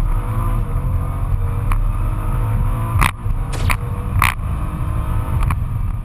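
Nissan GT-R R35's twin-turbo 3.8-litre V6, tuned to 630 hp, pulling hard under full-throttle acceleration, heard inside the cabin. The engine note rises in pitch early on, and a few short sharp cracks come about three to four seconds in.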